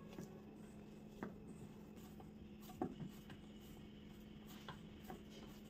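Hands kneading ragi dough in a stainless steel bowl: a few faint, soft knocks and taps against the bowl, the clearest nearly three seconds in, over a steady low hum.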